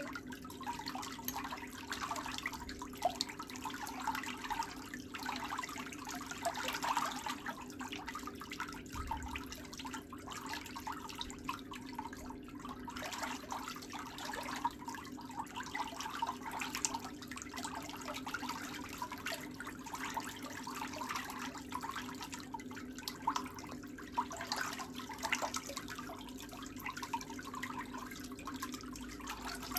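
Steady, irregular trickling of water over a low steady hum.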